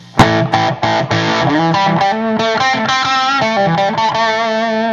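1962 Gibson Les Paul (SG-bodied) electric guitar played straight into a Cornford Roadhouse 50 amp and 4x12 cabinet: a hard strummed chord just after the start, then a quick run of notes that settles into long held notes.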